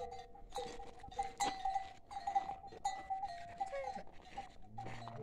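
Yak neck bells clanking irregularly, several short ringing strikes a second, as the herd moves.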